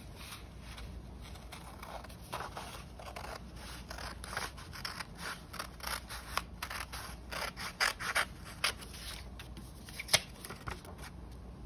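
Scissors cutting through a sheet of paper in a run of short snips, most of them in the second half, with light rustling as the paper is handled.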